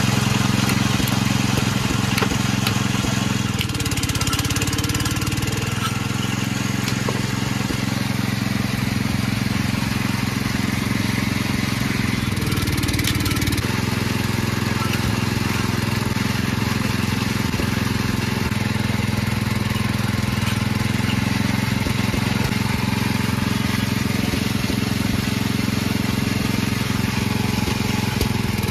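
Engine of a sugarcane juice crusher running steadily at constant speed, a continuous even drone. A few light clinks of glasses can be heard over it.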